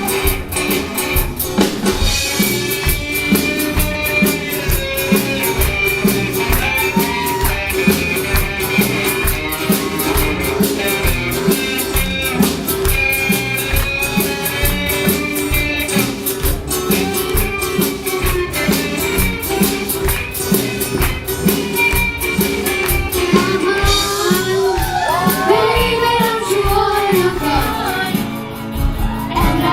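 Live rock band with drum kit and singing.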